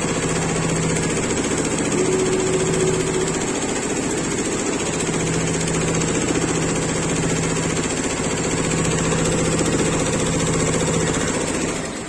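Multi-needle embroidery machine stitching at speed: a steady rapid needle chatter over a running hum. It drops off at the very end.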